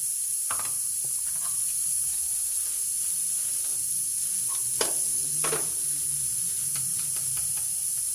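A spoon stirring and scraping a tomato, chili and garlic sauce in a bowl, a few scattered clicks and scrapes, the loudest about five seconds in, over a steady high hiss.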